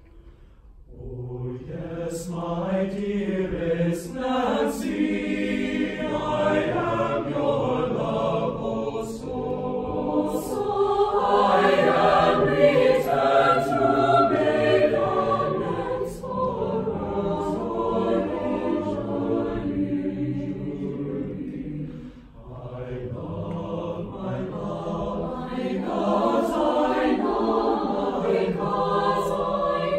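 Mixed-voice choir singing, the voices coming in about a second in and swelling loudest around the middle, then dropping briefly about two-thirds of the way through before rising again.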